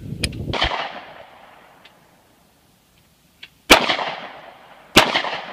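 Hi-Point 9mm pistol firing three shots of Blazer Brass 115-grain ammunition, each followed by a fading echo. The first comes about half a second in, and the other two come near the end, about a second and a quarter apart.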